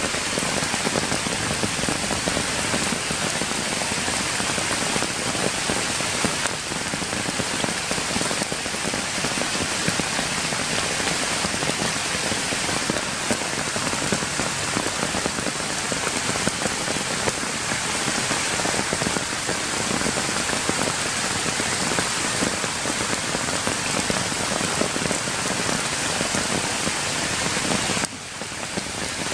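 Steady rain falling, a dense even hiss. It dips briefly for about a second near the end.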